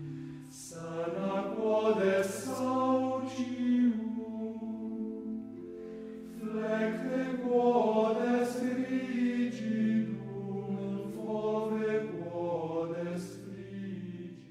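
Soft background choral chant: several voices singing slow phrases of long held notes.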